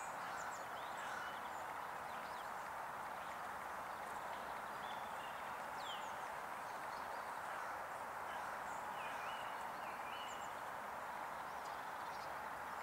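Steady outdoor background noise with faint, scattered high bird chirps.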